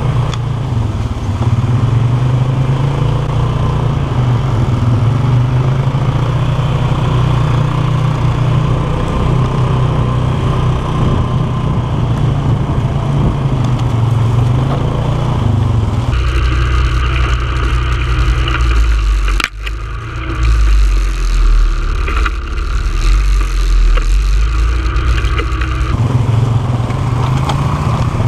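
Polaris 450 ATV engine running steadily while being ridden. From about 16 to 26 seconds in the sound abruptly takes on a different character, with a brief sharp drop about 19 seconds in.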